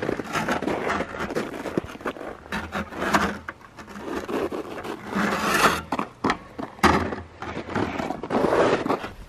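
Footsteps crunching and scuffing on packed snow and ice, uneven and continuous.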